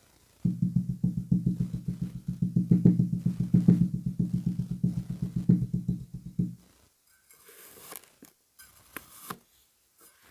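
A fast, even run of low thuds, about ten a second, for roughly six seconds. It stops suddenly and gives way to a few seconds of crisp scraping and crunching as kinetic sand is cut.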